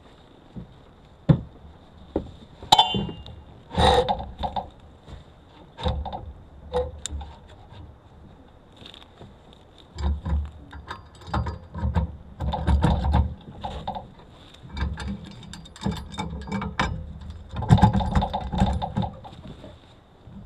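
Irregular knocks, metallic clinks and rattling as the log-loaded forestry trailer's metal bunk and stakes are handled, with a brief metallic ring early on and clusters of heavier thuds and rattles in the second half.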